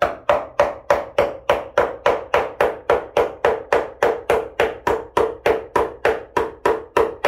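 A claw hammer drives a nail into a wall with quick, steady blows, about three to four a second, each with a short metallic ring.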